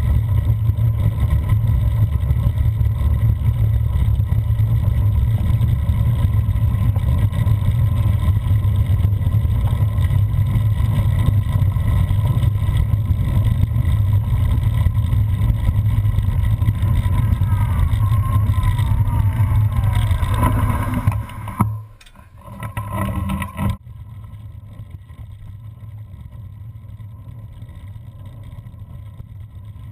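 Cyclocross bike riding over gravel, heard as a heavy low rumble of wind buffeting and tyre noise on a handlebar-mounted action camera. A brief falling squeal comes near two-thirds in, then the rumble drops off sharply and carries on much quieter on the narrower trail.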